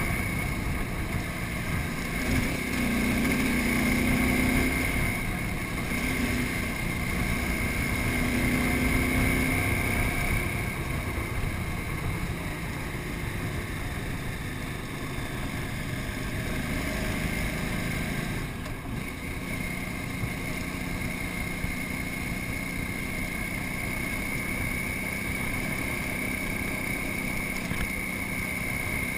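KTM 950 Super Enduro's 950cc V-twin engine running under way, over a steady rush of wind and road noise. The engine note rises and falls a couple of times in the first ten seconds or so, then holds steadier and a little quieter.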